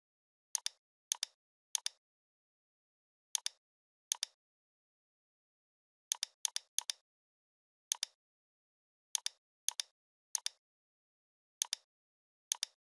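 Computer mouse button clicking about fourteen times at uneven intervals, each click a sharp press tick followed quickly by a release tick, with silence between.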